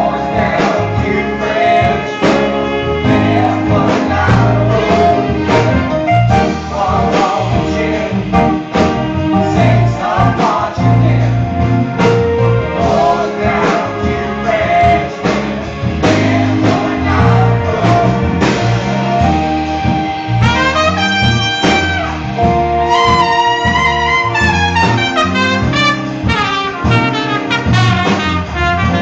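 Live brass-led jazz band playing an instrumental break: trumpet and other horns over a steady drum beat and bass, with fast trumpet runs in the last third.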